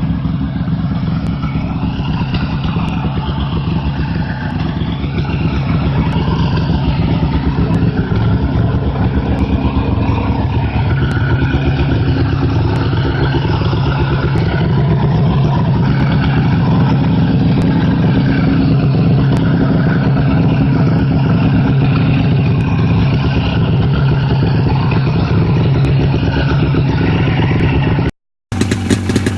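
Snowmobile engine running steadily. It cuts off abruptly near the end, and another engine running follows straight after.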